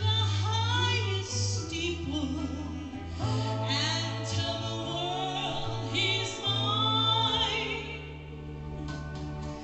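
A woman singing into a handheld microphone, her voice sliding and wavering on held notes, over instrumental accompaniment with sustained bass notes that change every second or two.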